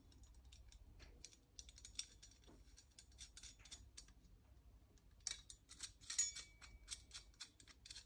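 Faint, irregular clicking and scraping of a short single-speed chainring bolt and its nut being threaded together by hand through a chainring, with a busier run of clicks about two-thirds of the way through.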